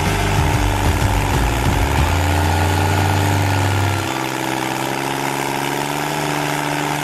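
Carlton stump grinder's engine running steadily while its cutter wheel grinds into a tree stump. The deep low rumble drops away abruptly about four seconds in.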